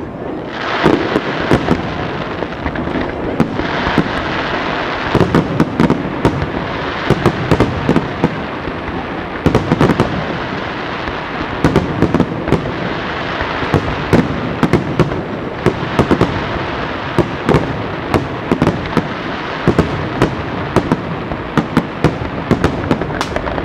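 Aerial firework shells bursting in a dense, unbroken barrage: rapid bangs piled on a continuous crackle, with no pause.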